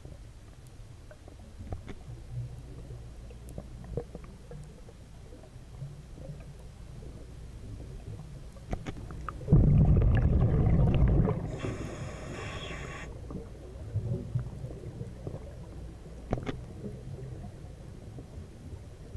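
A scuba diver breathing underwater through a regulator. About halfway through, exhaled bubbles rumble loudly for under two seconds, followed at once by the hiss of a breath drawn in. Before and after there is a low rumble with scattered faint clicks.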